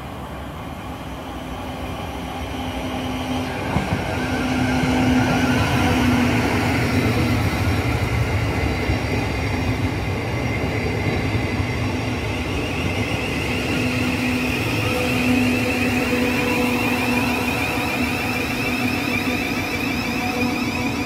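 South Western Railway Class 707 electric multiple unit moving along the platform: a steady electric whine with wavering high tones over the rumble of wheels on the rails, growing louder over the first few seconds as it comes near.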